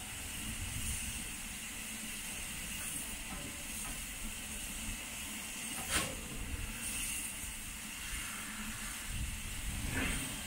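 BR Standard Class 9F steam locomotive standing in steam, hissing steadily over a low rumble, with one sharp knock about six seconds in.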